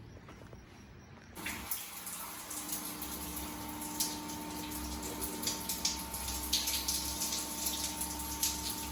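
Water starts running about a second and a half in and keeps up a steady splashing hiss, like a tap or shower turned on.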